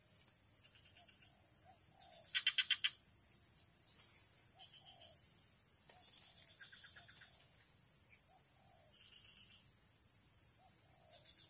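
Outdoor nature ambience: a steady high insect drone, with short trains of quick chirping pulses repeating every second or two. The loudest is a burst of about five pulses some two and a half seconds in.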